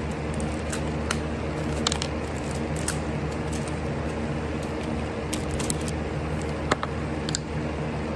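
A steady low machine hum, with scattered light clicks and taps of small metal tools being handled, the sharpest a little before the end.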